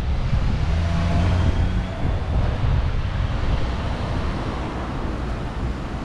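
Wind buffeting the microphone: a loud, unsteady low rumble that eases a little after about two seconds.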